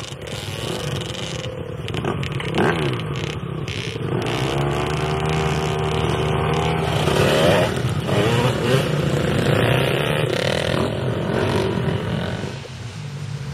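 Several dirt bikes riding through a shallow river crossing one after another, their engines revving up and down as they pass, with water splashing under the wheels. The engines are loudest through the middle and ease off near the end.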